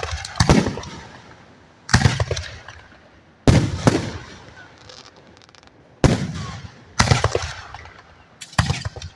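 Aerial firework shells bursting overhead: about six loud booms in nine seconds, each trailing off in a rolling echo, with fainter crackling between them.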